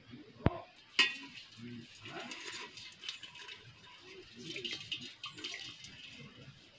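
Clinks and scrapes of metal cookware as a hand reaches into an aluminium pot of water and pulls out a live crab, with a sharp knock about half a second in and another at one second, then scattered small clicks and rustles.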